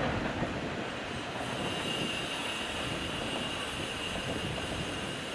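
JR East 251 series electric multiple unit running over curved track and points as it pulls away, with a low rumble and a steady high wheel squeal from the curve.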